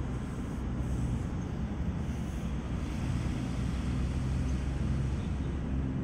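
Excavator's diesel engine running steadily, heard from inside the operator's cab as a continuous low hum while the control levers are worked.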